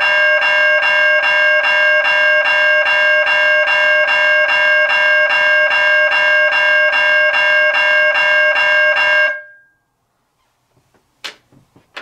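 A cast-iron Griswold mechanical railroad crossing bell and a GE electronic crossing bell ringing together in a fast, even rhythm of about three to four strokes a second. The ringing cuts off about nine seconds in. A sharp click and a few small knocks follow near the end.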